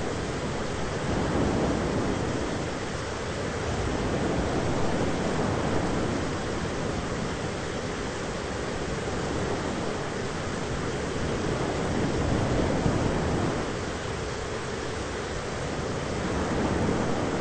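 Thunderstorm ambience: a steady rushing noise with low rumbles that swell and fade several times, a few seconds apart.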